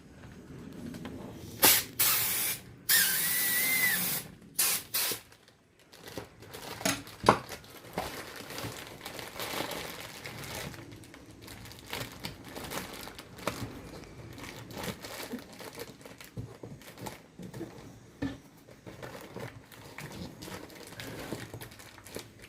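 A loud hiss of rushing air about two seconds in, lasting a couple of seconds, then two short bursts of hiss. After that come light clicks and rustling of handling.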